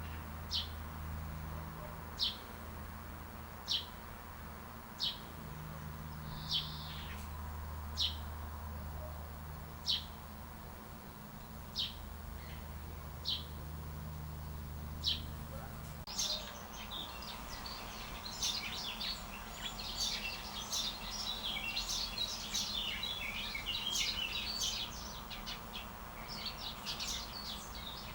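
A bird repeating one short, sharp, downward-sliding chirp about every second and a half over a low hum. About halfway through, this cuts abruptly to a dense chorus of many small birds chirping and twittering over one another.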